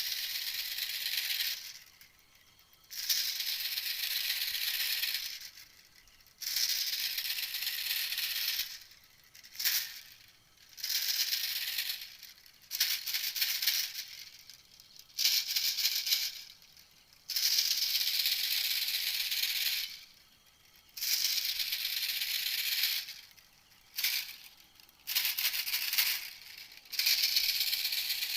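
A small bird's rapid, rattling chatter repeated in bursts of one to three seconds with short pauses between, played back as a bird-trapping lure call.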